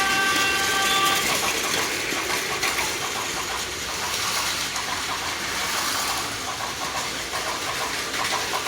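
Plarail battery-powered toy trains running on plastic track: a steady whirring of small motors and gears with clicking of wheels over the track joints. A short electronic tone from a sound-effect unit sounds for about the first second.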